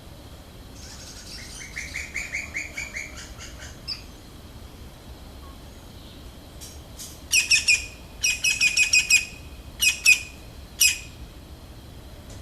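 Birds calling: a run of quick chirps about a second in, then louder bursts of rapid repeated notes and two or three short single calls near the end.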